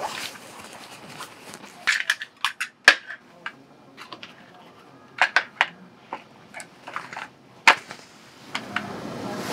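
Lunch-box items being handled and packed into a cloth drawstring bag: scattered sharp clicks and taps of a plastic chopstick case and cup against a wooden bento box, with fabric rustling.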